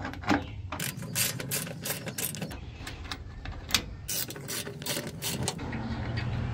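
Hand ratchet with a 12 mm socket clicking in quick, irregular runs as it backs out the bolts of a plastic underbody protective cover. The clicking stops shortly before the end.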